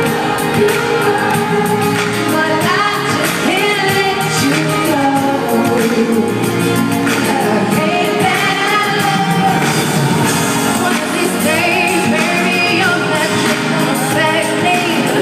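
Live pop concert: a band playing with a female singer's lead vocal over the amplified sound system, picked up from the stands on a phone with the arena's echo.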